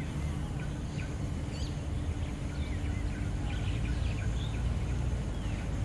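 Outdoor ambience: a steady low background noise with birds chirping now and then.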